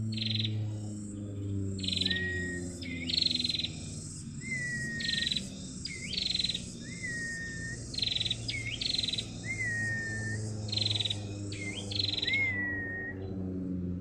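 Female prinia (prenjak) calling over and over, the phrase repeating about every two and a half seconds: buzzy rasping notes, a quick upward whistle, and a thin, slightly falling note. A low, steady drone runs underneath.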